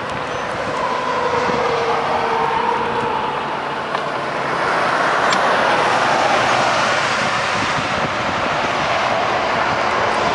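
Highway traffic passing at speed: tyre and engine noise of cars and a tractor-trailer, swelling to its loudest in the middle and easing off after.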